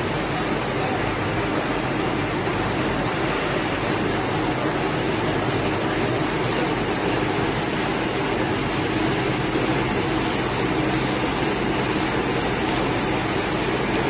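Corn silage baler-wrapper running steadily while it winds stretch film around a silage bale: an even, continuous machine noise with no knocks or breaks.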